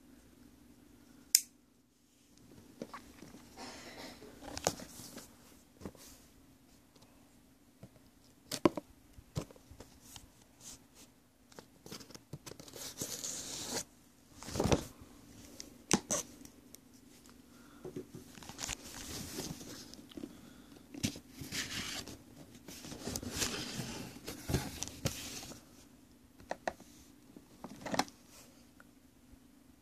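Packaging being opened and handled by hand: stretches of tearing and rustling, with several sharp clicks and taps in between, over a steady low hum.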